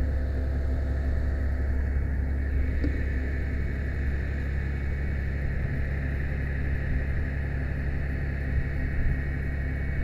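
Fire ladder truck's engine running with a steady low drone while it powers the aerial ladder's hydraulics as the ladder swings around.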